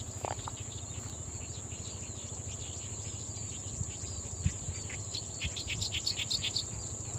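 Steady high-pitched insect chorus, typical of crickets, over a low rumble. A quick run of short chirps comes in about five seconds in.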